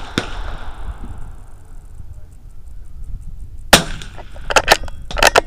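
Keystone KPT722 .22 LR bolt-action rifle firing one CCI Pistol Match round: a single sharp report about three and a half seconds in. It is followed by several quick metallic clicks, the bolt being worked to chamber the next round.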